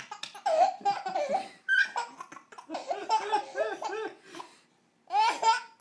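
A baby laughing hard in several bursts, with a run of quick, evenly spaced laugh pulses in the middle, a short pause, then one more burst near the end.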